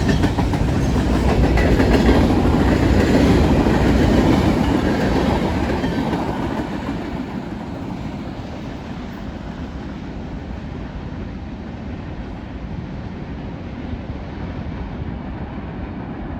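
CSX freight train rolling past, its wheels clacking over the rails, loudest in the first few seconds and then fading as the train moves away.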